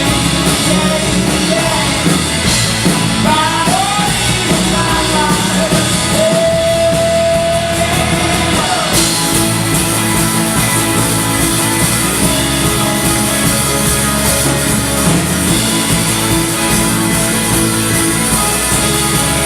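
Live rock band playing, with a singer's voice over guitars and drums and one long held note. About halfway through the singing drops out and the band plays on, fuller and brighter.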